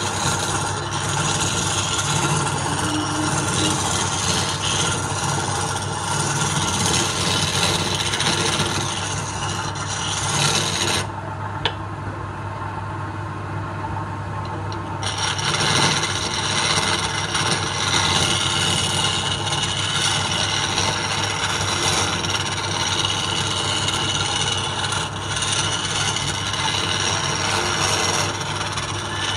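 A wood lathe runs with a steady hum while a flat scraper cuts into a spinning block of palm wood, making a continuous harsh scraping. About eleven seconds in, the scraping stops for roughly four seconds as the tool is lifted off, leaving only the lathe's hum, then starts again.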